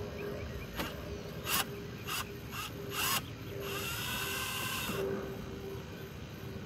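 Cordless drill driving screws at a car's front license plate: a few short clicks and brief blips, then the motor runs steadily with a whine for about a second and a half, starting about three and a half seconds in.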